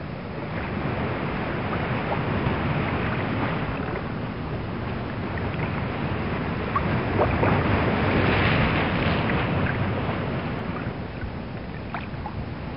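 Sea waves and wind: an even rushing noise that swells a little around the middle.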